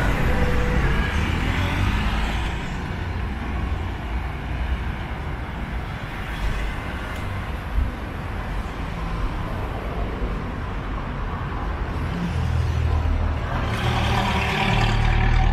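Street traffic on wet roads: cars, motorcycles and a bus running at a city intersection, a steady low rumble. A louder vehicle passes near the end.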